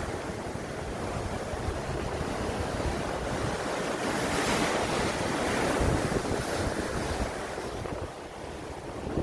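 Rough sea waves surging and breaking, with wind buffeting the microphone. The surf swells louder about halfway through and eases off near the end.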